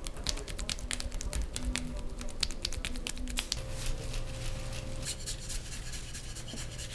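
Hands scratching and rubbing over skin and hair in a massage: a dense run of crisp, scratchy clicks, thinning out about halfway, when a faint steady hum comes in.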